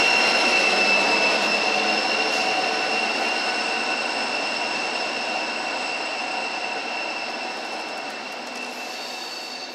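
DSB ME diesel-electric locomotive, with its EMD 645 two-stroke V16, pulling a train away with a steady high whine over its engine noise, fading as it moves off. Its double-deck coaches then roll past.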